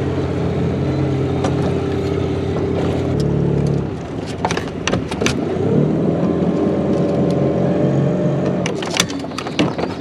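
Small outboard motor pushing an inflatable dinghy, running steadily, then throttled back about four seconds in and revved up again around six seconds before easing off near the end, with a few sharp knocks over the motor.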